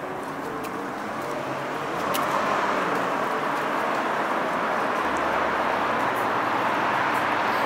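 Road traffic: a car driving by on the street, its tyre and engine noise growing louder about two seconds in and then holding steady.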